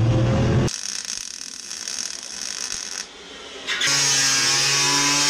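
A loud car engine cuts off abruptly under a second in, followed by a quieter stretch of fine, rapid mechanical clicking. From about four seconds in, an angle grinder runs steadily against sheet metal.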